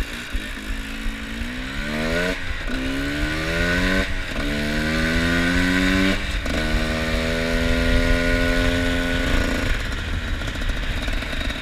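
Two-stroke trail motorcycle accelerating through the gears: the revs climb and drop back at each of three upshifts, then hold fairly steady before easing off near the end.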